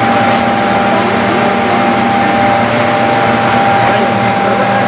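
Hospital oxygen generation plant running: a loud, steady hum with a constant low drone and a higher steady tone.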